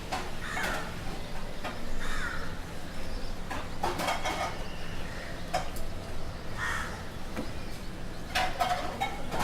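Crows cawing several times over a steady low street rumble, with a few sharp clicks and knocks scattered through.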